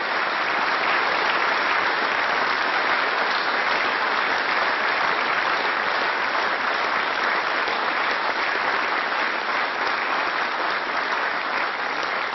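A chamber full of members of parliament applauding steadily, dense clapping at the close of a speech.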